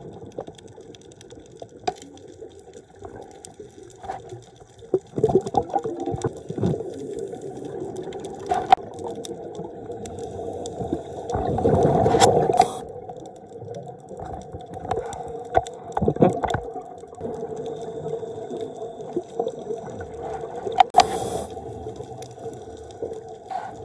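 Underwater gurgle of a scuba diver's exhaled bubbles leaving the regulator, coming in bursts every few seconds, over a steady underwater hum heard through the camera housing.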